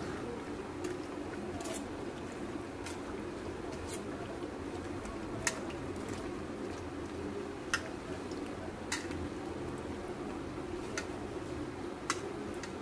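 Hand squishing and kneading raw chicken pieces through a thick yogurt-and-spice marinade in a steel bowl, with a few sharp clicks scattered through it.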